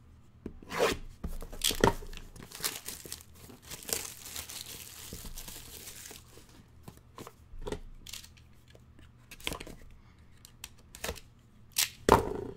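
Plastic shrink wrap being torn off a sealed trading-card hobby box and crinkled, with scattered sharp crackles and clicks as the box is handled. A longer stretch of tearing and crinkling comes about four seconds in, and two louder cracks come near the end.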